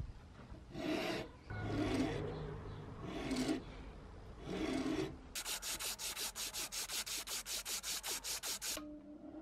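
Flat hand file rasping across a wooden knife-handle block clamped in a vise, in slow strokes a little over a second apart. About five seconds in it changes to an abrasive cloth strip pulled quickly back and forth around a round metal piece, about seven even strokes a second, stopping just before the end.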